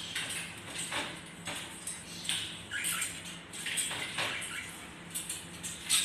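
A green parrot's claws tapping and scraping irregularly on a hard floor as it walks, over a faint steady hum.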